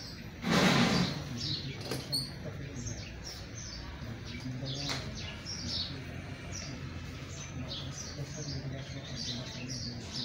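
Small birds chirping over and over, short high calls repeating throughout. About half a second in, a loud rush of noise lasting under a second stands out above them.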